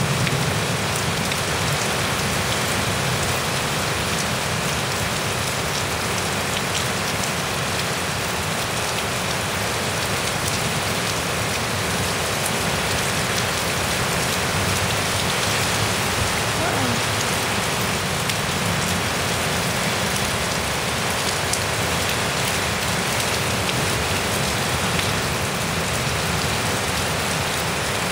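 Heavy rain falling steadily in a severe thunderstorm, an even downpour on the ground and roofs.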